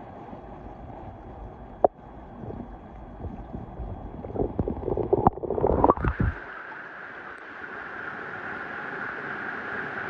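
Muffled underwater sound of a camera held under the water of a spring pool: a low rumble with water knocking against it, one sharp click about two seconds in, and louder sloshing and splashing from about four to six seconds. Then it changes abruptly to the steady rush of a small waterfall pouring into the pool.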